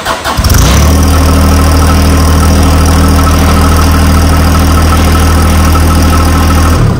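John Deere 1025R's three-cylinder diesel engine catches within the first second and runs at a steady idle, then shuts off near the end. It is run to lower the tractor on the loader hydraulics.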